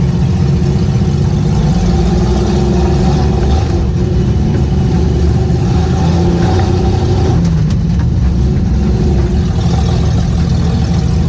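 Old Willys truck's engine running while the truck drives, heard from inside the cab. Its note changes about four seconds in and again past seven seconds.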